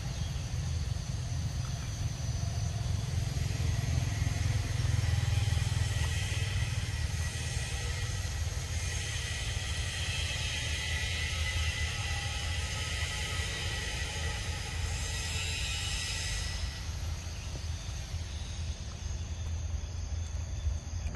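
Forest ambience: a steady high insect drone, swelling for several seconds in the middle, over a continuous low rumble.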